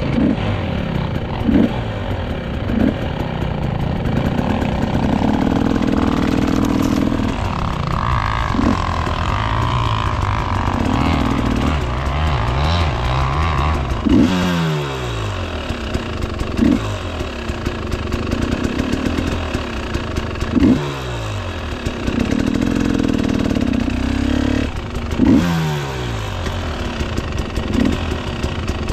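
Dirt bike engine under way, revs rising and falling again and again, with several quick drops in pitch and short sharp blips of throttle.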